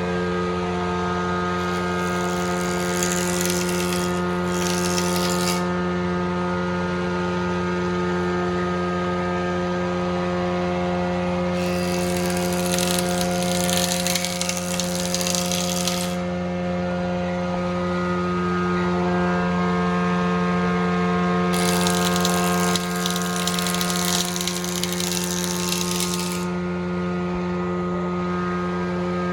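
Frommia combination planer-thicknesser running with a steady hum, cutting wood three times for about four to five seconds each, a dense hiss over the hum: a board passing the cutter block, starting about a second and a half in, near the middle, and past two-thirds through.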